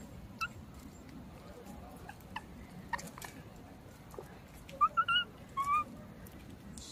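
Baby macaque giving short, high squeaking cries: a faint one near the start, then a quick run of three about five seconds in and a slightly longer one just after.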